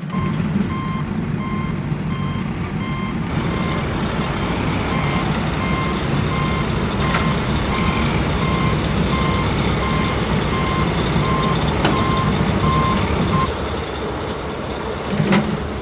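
Heavy diesel construction vehicle's engine running steadily while its reverse alarm beeps about twice a second; the beeping stops near the end.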